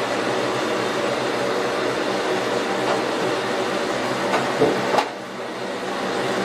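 Mirrored medicine cabinet door clicking and knocking as it is swung open, a few sharp clicks a little over four seconds in, over a steady mechanical hum in the small room.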